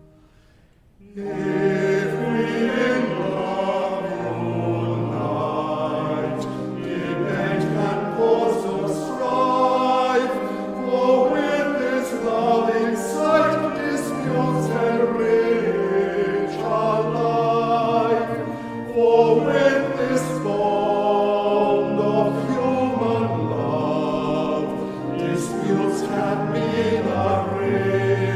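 Congregation singing a hymn, with a short break about a second in before the singing starts again.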